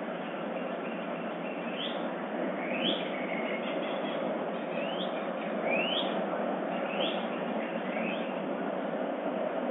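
Dawn birdsong: a bird gives short rising chirps, roughly one a second, starting about two seconds in, over a steady hiss.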